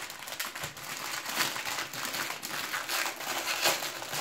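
Metallic foil wrapper of a trading-card starter pack crinkling and crackling as it is pulled open by hand, a dense, irregular run of crackles.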